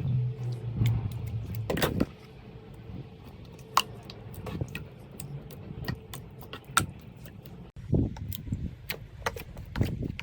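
Slime being squeezed and poked, giving scattered sharp clicks and pops. A low steady hum runs under the first two seconds and then stops.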